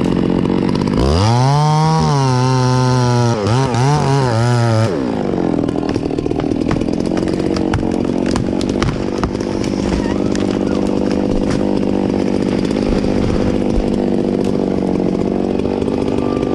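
Two-stroke chainsaw revved up to high throttle about a second in, its pitch wavering and dipping for a few seconds, then dropping back to a steady idle for the rest.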